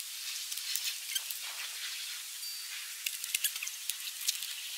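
Thin plastic tubing being handled and fed along a motorcycle's frame under the fairing: scattered light clicks and crackles over a steady hiss.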